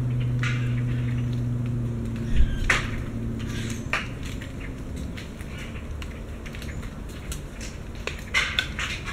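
Acorns dropping from an oak tree, ticking and clattering through the leaves and landing in scattered single hits, with a louder knock about two and a half seconds in and a cluster of hits near the end. A steady low hum runs underneath and fades out around four seconds in.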